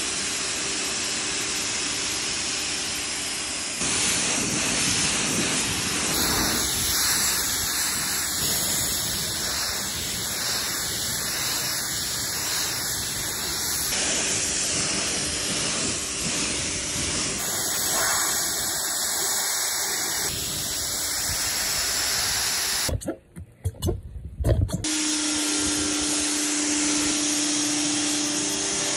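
Pressure washer jet spraying water against an RV's body, a steady hiss of water striking the panels during the rinse-down. About 23 s in the spray drops out for roughly two seconds with a few sharp knocks, then resumes.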